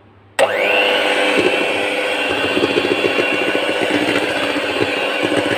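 Electric hand mixer switched on about half a second in, its motor whirring up to speed and then running steadily while its twin beaters whip a mixture of cream, mango puree and condensed milk, with an uneven churning rattle from the beaters in the bowl.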